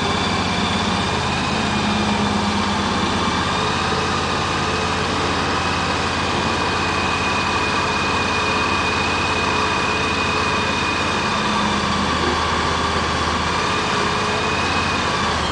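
Mini skid steer loader's 21 HP Briggs & Stratton petrol engine running steadily, with a thin steady whine held above the engine note; the low hum shifts slightly about twelve seconds in.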